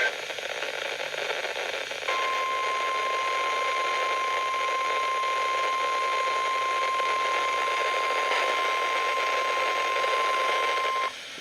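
NOAA Weather Radio warning alarm tone: a single steady high 1050 Hz tone over radio static hiss, starting about two seconds in, lasting about nine seconds and cutting off abruptly. It is the alert that comes before a severe thunderstorm warning is read.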